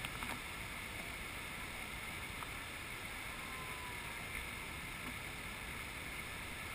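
Steady distant rushing of the Marmore Falls waterfall, with a few faint footsteps crunching on gravel.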